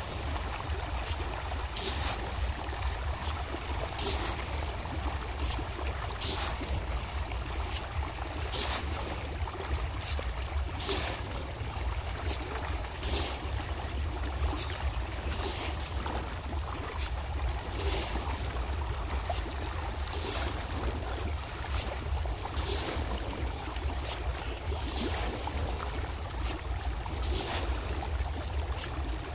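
Many fish splashing and churning at the water's surface as they feed, with sharp splashes every second or two over a continuous watery hiss and a steady low rumble.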